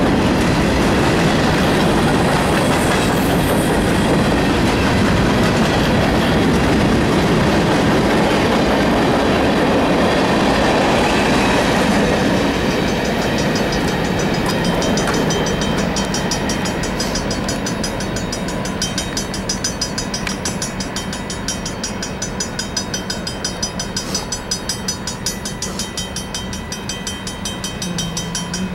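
Union Pacific freight cars rolling past close by, a steady loud rumble and clickety-clack of steel wheels on the rails. About twelve seconds in it turns quieter as the train moves away, and the rest is a fast, regular ticking clatter.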